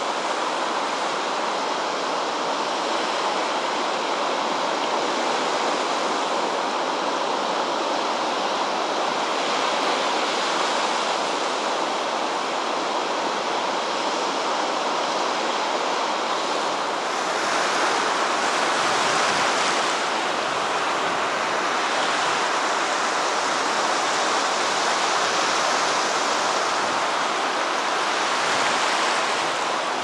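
Rough sea surf breaking on the shore after a storm: a steady, continuous rush of churning water, getting brighter and hissier a bit past halfway.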